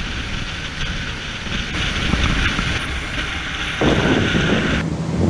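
Motorboat running at speed over open water: a steady engine drone under wind buffeting the microphone and the rush of water. About four seconds in, the wind and water noise grows louder.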